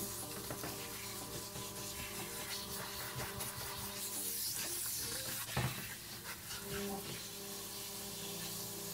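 Handheld shower head spraying water onto a wet dog's coat as it is rinsed, a steady hiss, with a single knock a little past halfway.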